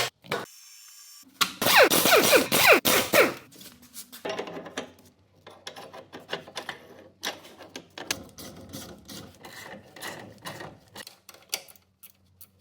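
Mechanic's tool and metal-part handling: a loud scraping, rubbing stretch lasting about two seconds near the start, then a run of small clicks and knocks.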